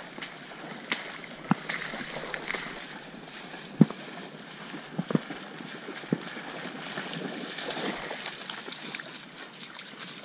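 Dog splashing and wading through shallow marsh water on a retrieve, with a few sharp knocks scattered through it.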